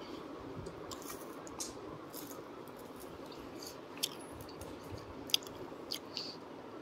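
Soft mouth sounds of people eating ice cream, scattered small smacks and clicks with one sharper click a little past five seconds, over steady background noise.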